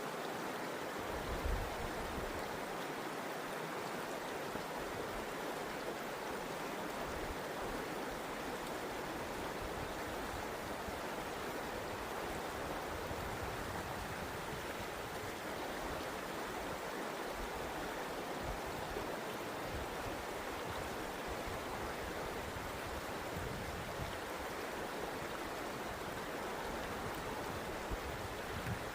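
Toccoa River water rushing steadily over its bed, an even, unbroken flowing noise.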